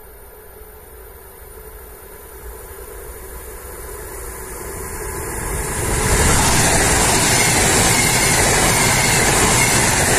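ES2GP "Lastochka" electric multiple unit approaching at speed, its sound growing steadily louder. It then passes close by from about six seconds in with a loud, steady noise of wheels on rails and rushing air.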